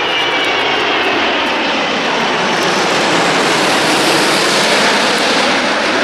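Airbus A380 on final approach with gear down, its four turbofan engines making a loud, steady jet rush as it passes low overhead. A faint high whine slides down in pitch in the first second.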